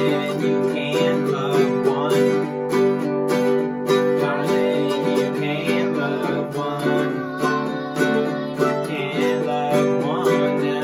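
Mandolin and a small strummed acoustic string instrument playing an upbeat folk tune together, with a steady rhythmic strum under the mandolin's plucked notes.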